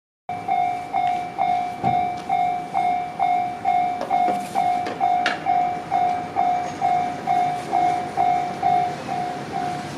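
Railway level-crossing warning bell ringing, one high tone struck evenly about twice a second.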